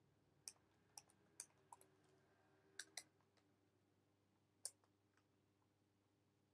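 Faint keystrokes on a computer keyboard: about eight sparse taps, most in the first three seconds and a last one near five seconds in, over a faint steady hum.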